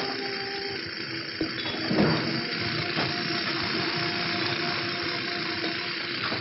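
Steady mechanical din of stone quarrying with a few sharp knocks of tools on rock, the strongest about two seconds in, under faint held notes of background music.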